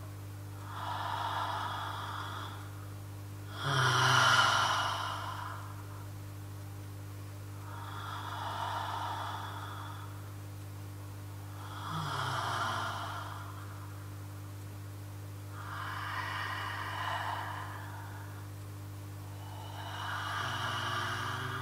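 A person breathing slowly and audibly close to a microphone: six long breaths about four seconds apart, the second one the loudest, over a steady low electrical hum.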